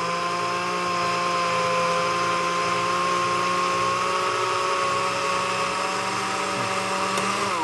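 Countertop blender running on its fast setting, a steady high motor whine as it blends frozen banana, strawberries, spinach, yogurt and orange juice into a smoothie. Near the end the pitch starts to fall as the motor is switched off.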